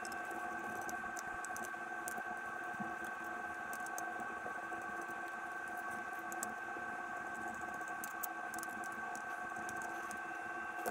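Faint scattered clicks and light scratches from small metal screw covers and a small screwdriver being handled on a graphics card, over a steady hum of several held tones.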